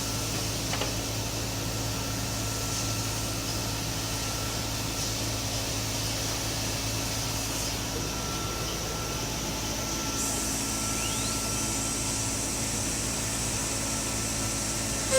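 Woodworking CNC router machine running steadily: a constant hum with a thin steady whine and a high hiss.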